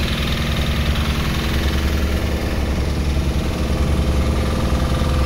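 A boat's engine running steadily at an even speed, a low constant drone heard from inside the cabin.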